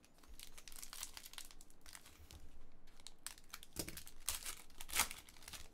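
Foil wrapper of a Panini Totally Certified basketball card pack crinkling and tearing as it is opened by hand, in a run of irregular crackles that is loudest about five seconds in.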